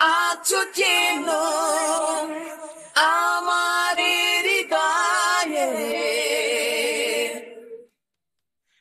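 Isolated lead vocal of a Bangla song with no accompaniment: a man sings one phrase in a high register, with vibrato on long held notes. The voice fades out and stops shortly before the end.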